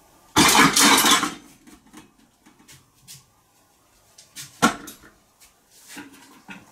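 Stainless steel pots and pans clattering on a kitchen shelf for about a second as a rat among them on the top shelf is disturbed, followed by scattered light knocks and one sharp clank about four and a half seconds in.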